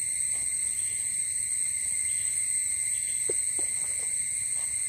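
Steady, unbroken high-pitched chirring of insects, two even tones, one shrill and one lower, carrying on without pause.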